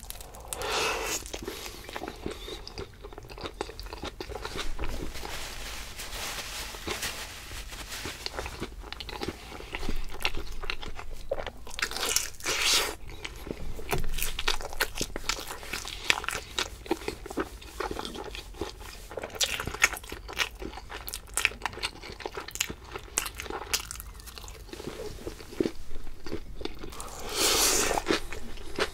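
Close-miked eating with no talking: biting, chewing and crunching of food, a dense run of small sharp clicks, with a few louder bites about half a second in, midway and near the end.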